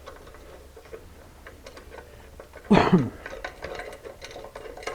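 Light metallic clicks and ticks of a billet clamp, bolt and washers being handled and fitted onto a fairing bracket by hand, with one brief louder sound about three seconds in.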